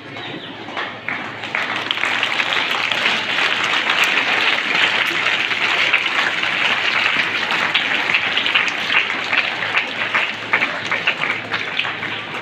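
Crowd of students and staff applauding, many hands clapping. The clapping builds over the first couple of seconds and eases off near the end.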